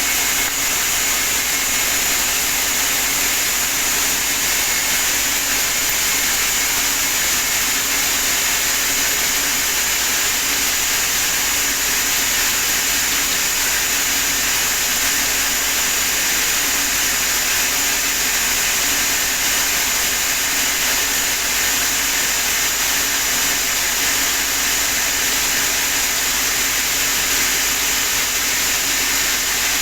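Sawmill saw running steadily, a loud even noise with no break or change.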